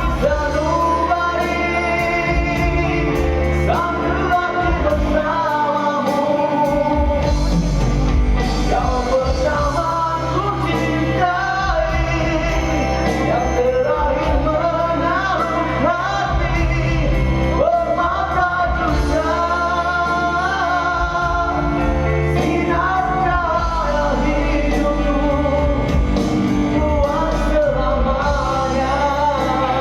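A song: a singer's voice carrying a gliding melody over a steady instrumental backing.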